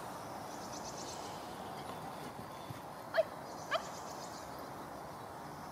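A Pumi puppy gives two short, high yips about three seconds in, half a second apart, each sweeping up in pitch, over a steady low hiss.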